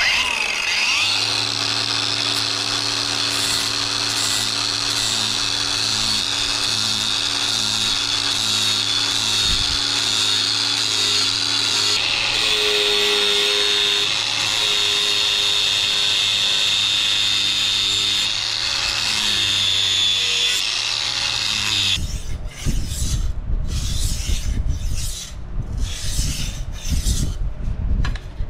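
Electric angle grinder with a sanding disc running steadily against the steel blade of a sugarcane machete, grinding and smoothing its surface. About 22 seconds in it stops, and the blade is stroked in irregular passes across a whetstone to sharpen it.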